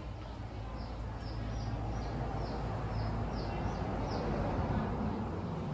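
A small bird chirping: a series of short, falling high notes, about two to three a second, over a steady low rumble.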